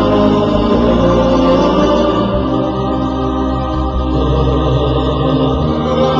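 Intro music of sustained, layered voices in a slow chant-like style, with held chords that shift every second or so.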